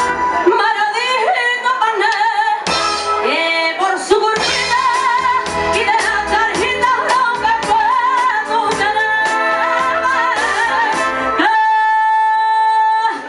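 A woman singing live with vibrato, backed by a band with drums. Near the end the drums and bass stop and a single note is held.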